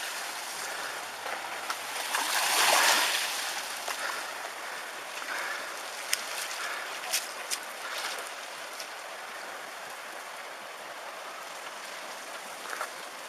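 Tsunami floodwater rushing in a steady wash that swells loudest about two to three seconds in, with a few sharp knocks in the middle.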